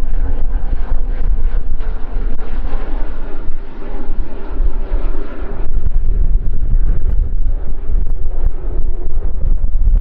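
Airplane flying overhead: a steady engine drone with a few sustained tones, under heavy wind rumble on the microphone. The sound changes abruptly a little past halfway.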